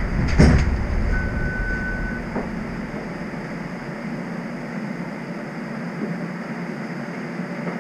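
TTC streetcar standing at a stop, its steady low hum running throughout. A thump comes about half a second in, and a single steady beep lasting about a second follows shortly after.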